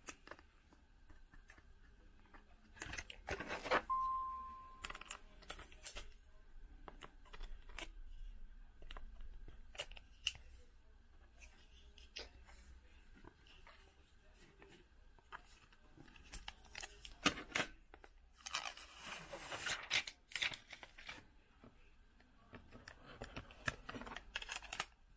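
Handling noise of a magnetic phone case with a glass privacy screen: scattered clicks, taps and rustling scrapes as the case and glass are pressed and turned in the hands. A short beep sounds once a few seconds in.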